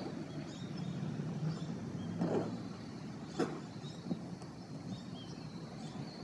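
Distant aircraft engine droning steadily overhead, a low hum that grows fainter after about two seconds, with two short knocks a little over a second apart.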